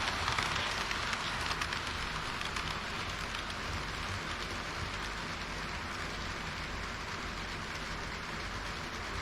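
HO-gauge model train running along its track: a steady rushing hiss of wheels and motor with a low rumble underneath.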